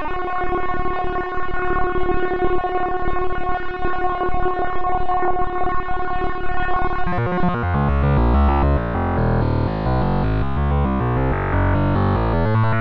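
Background music: a long held electronic tone, then a beat with a heavy bass line coming in about seven seconds in.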